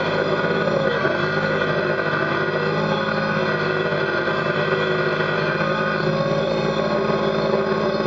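Kubota BX sub-compact tractor's three-cylinder diesel engine running at a steady pitch while the front loader bucket pushes through dirt and brush at a crawl.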